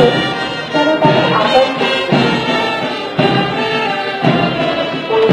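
March music with pitched melody lines over a slow, even beat of about one beat a second, setting the step for troops marching on parade.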